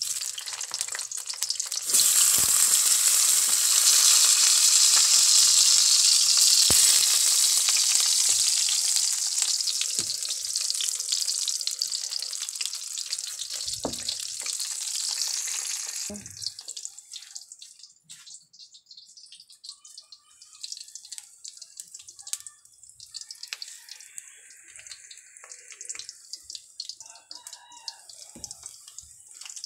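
Eggplant slices frying in hot cooking oil: a loud sizzle starts suddenly about two seconds in and slowly weakens. Around halfway it drops away, leaving quieter scattered crackles and clicks.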